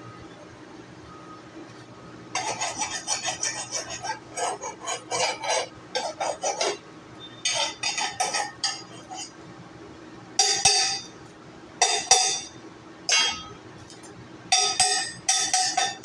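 Metal tapping and clinking on steel: fast runs of light strikes, then a few short separate clusters of taps, each with a bright metallic ring.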